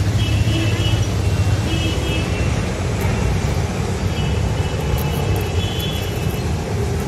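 Steady low rumble of roadside traffic, with faint high tones coming and going.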